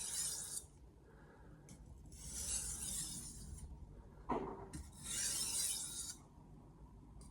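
Steel blade of an 8-inch Mercer granton-edge knife sliding across a Stratton Pro 2000 sharpening stone in three separate hissing strokes, with a light knock about four seconds in. These are deburring strokes, made while a little burr is still left on the edge.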